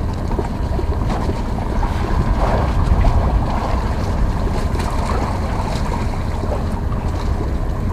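Wind buffeting the microphone as a steady low rumble, over choppy sea water lapping and splashing against the bamboo poles of an offshore fishing platform.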